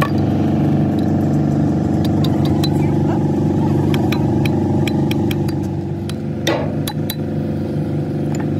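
An engine running steadily, with many light metallic clinks and taps over it and a louder clank about six and a half seconds in.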